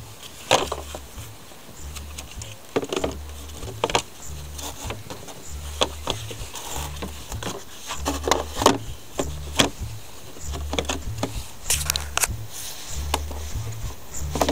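A new round paper air filter element being handled and pushed into its plastic airbox. Irregular clicks and knocks of plastic against plastic, with rustling in between.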